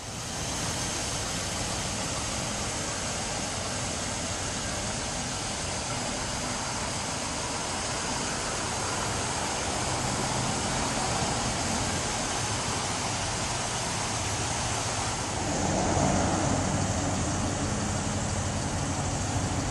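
Vehicle engine idling steadily under a constant hiss; about 15 seconds in the sound grows louder and fuller.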